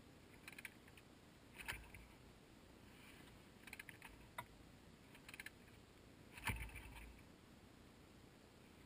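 Near silence broken by a handful of faint, irregular crunches of boots on packed snow, the loudest about six and a half seconds in.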